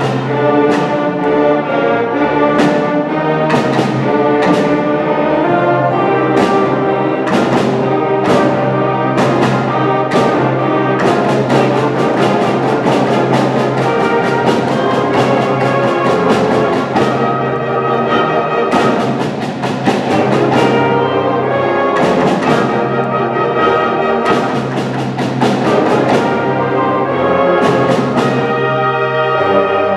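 Eighth-grade concert band playing sustained brass and woodwind chords over a held bass note, with percussion strokes roughly once a second.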